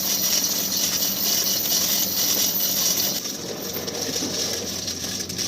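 Steady mechanical noise of a machine running, a little quieter in the second half.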